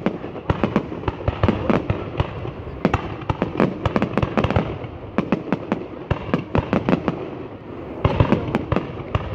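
Fireworks going off: a dense, irregular run of sharp bangs and crackles, several a second and often overlapping, that eases briefly and then comes back louder about eight seconds in.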